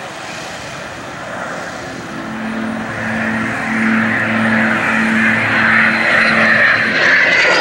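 Jet noise from an F-22 Raptor's twin turbofan engines during a display pass, growing steadily louder as the jet closes in, with a faint high whine near the end.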